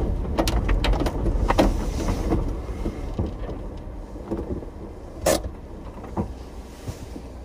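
Daihatsu Hijet 4WD kei truck rolling over a gravel riverbed, heard from inside the cab: a low rumble with scattered clicks and knocks of the cab rattling, fading over the first few seconds as the truck slows. A single sharp knock comes about five seconds in.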